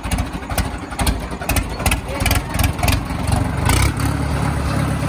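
Tractor's diesel engine running with a knocking clatter; about three and a half seconds in it settles into a louder, steadier low hum.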